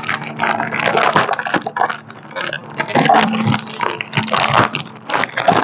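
Clear plastic packaging bag crinkling and crackling in irregular bursts as it is handled and worked open by hand.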